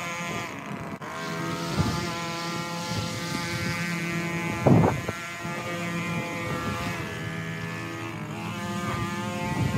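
Small gasoline engine of lawn equipment running, its pitch rising and falling a little as the throttle changes, with a short loud thump about five seconds in.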